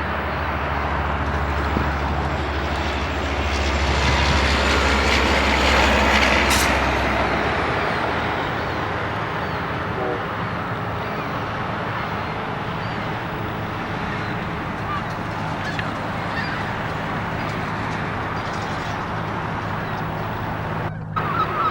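Steady rushing outdoor noise with a low engine hum that swells and then fades over the first several seconds, like a vehicle passing, and faint honking calls of waterfowl.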